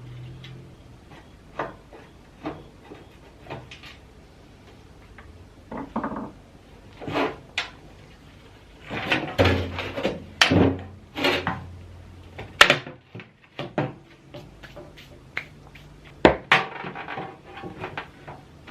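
Irregular knocks, clanks and rattles of a metal welder accessory unit being handled during teardown, busiest in the middle, with a sharp knock about two-thirds of the way through.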